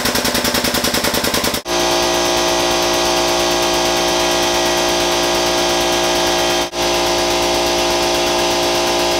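Air-over-hydraulic ram jack's air pump running as it drives the ram that turns the tube bender's die and bends the tubing. It chatters in rapid even pulses, about a dozen a second, then about a second and a half in it changes to a steady buzz, with one brief break partway through.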